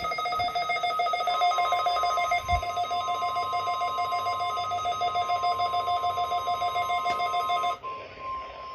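NOAA Weather Radio's steady single-pitch 1050 Hz warning alarm tone, starting about a second in and holding, which signals a test of the receivers' alert function. Over most of it a louder pulsing electronic alarm made of several tones sounds, then stops abruptly about a second before the end.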